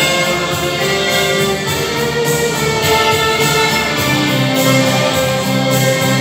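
Two violins playing together, bowing a sustained melody, with lower accompanying notes underneath.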